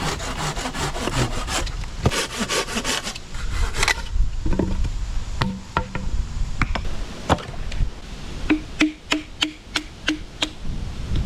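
Firewood being cut with a hand saw: the blade rasps through the wood in quick, even strokes for about three seconds. Then come separate sharp wooden knocks, with a quick run of about eight knocks near the end.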